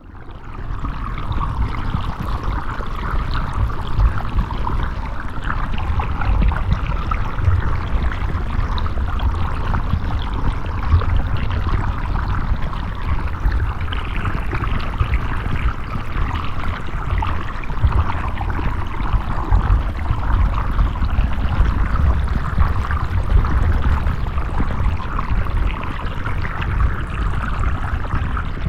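River water flowing steadily: a constant rushing with a deep rumble beneath it, fading in at the start.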